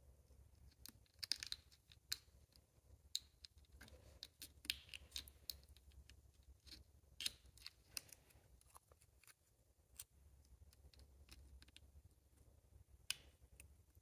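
Faint scattered small clicks and scrapes of hand work fitting a new seal into a pressure-switch bore on a GM 6L80 transmission control module, with the seal tool and parts tapping against the plastic housing, over a faint low hum.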